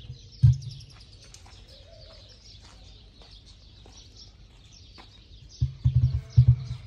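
Emu giving deep, pulsing booming calls: one short boom about half a second in, then a quick run of low pulses starting in the last second and a half.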